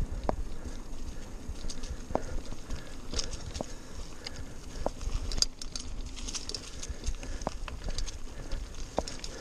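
Mountain bike rolling over a dirt trail strewn with dry leaves: tyres crackling through the leaves and the bike rattling over bumps, with scattered sharp ticks and a low rumble throughout.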